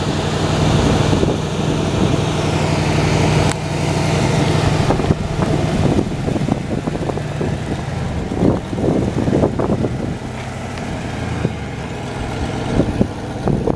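Carbureted 460 V8 of a 1977 Lincoln Continental Town Car idling steadily while still cold after a cold start.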